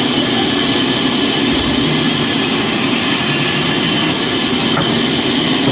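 A machine running steadily and loudly, with an even noise and no pauses.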